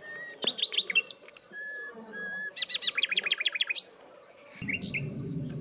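A songbird singing: clear whistled notes and a fast trill of rapidly repeated notes. A low steady hum comes in about four and a half seconds in.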